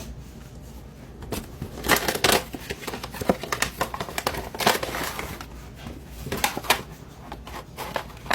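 Packaging of a miniatures booster box being opened and handled: irregular crinkling and rustling with sharp clicks and taps.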